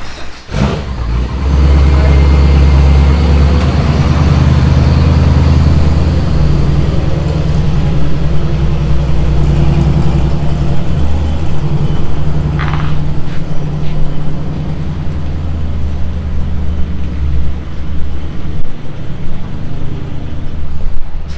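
Ford F-150 pickup's engine running as the truck creeps out at low speed: a loud, low engine drone that swells about a second and a half in and then rises and eases with the throttle.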